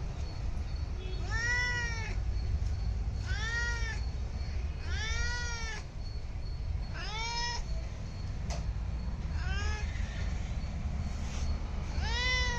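A domestic cat meowing repeatedly: six separate meows, each under a second long, rising and then falling in pitch, a second or two apart, over a steady low rumble.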